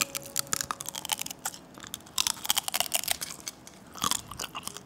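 Close-miked crunching and chewing of soy-sauce marinated raw crab (ganjang gejang), shell included, with many sharp crackles as the shell breaks between the teeth.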